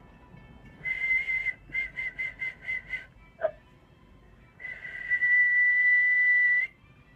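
A man whistling one steady high pitch: a short note, then six quick short notes, a brief low blip, and one long held note.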